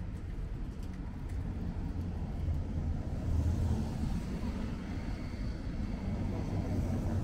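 Street traffic on a wet road: a steady low rumble, with tyre hiss on wet asphalt swelling in the second half as a car passes.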